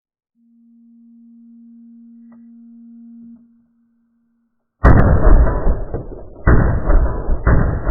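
Slowed-down playback of an AR-15 string: a shot timer's start beep stretched into a low steady tone for about three seconds, then three deep, drawn-out rifle shots, the first about five seconds in and the next two about a second apart.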